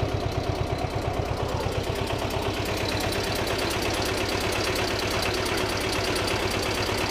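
Old two-cylinder marine diesel (2ChSP type) running at low revs, a fast even knocking beat of about ten firings a second.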